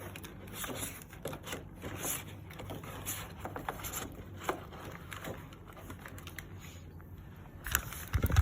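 Hands handling headphones, their cord and a carrying bag: irregular light rustles, scrapes and clicks, with a few louder knocks near the end.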